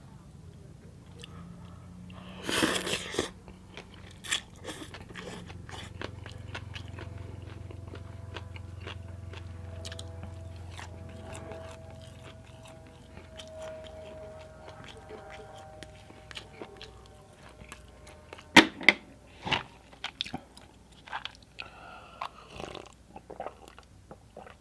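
Close-up chewing and crunching of papaya salad, with wet mouth clicks and smacks. There is a louder crunch a few seconds in and a cluster of louder bites about three-quarters of the way through.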